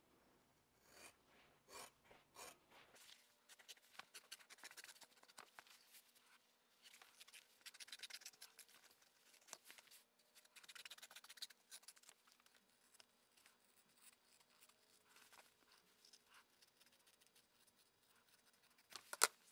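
Scissors cutting a thin pale leather sheet, faint, with clusters of snipping and one sharp click near the end.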